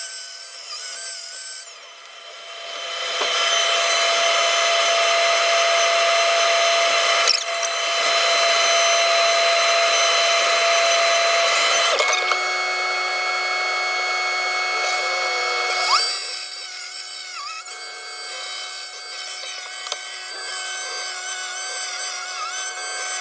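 Takeuchi TB290 compact excavator working, with a steady high hydraulic whine whose pitch wavers as the controls are worked. It dips quieter briefly near the start and steps down to a quieter level about two-thirds through.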